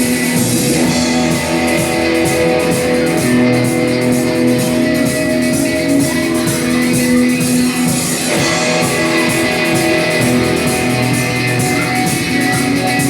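Live band playing a rock number, with strummed guitar and drum kit in an instrumental passage without vocals.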